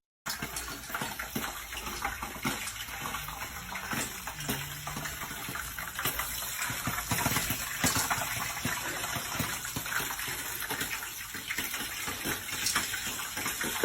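Water running steadily with a continuous rush and small crackles, as from a tap.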